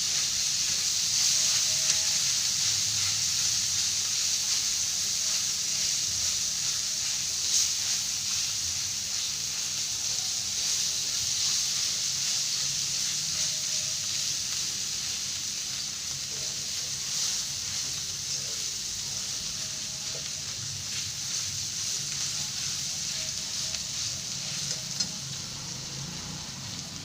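Bitter gourd chutney sizzling in an uncovered pan as it cooks down: a steady hiss with a few light clicks, easing slightly toward the end.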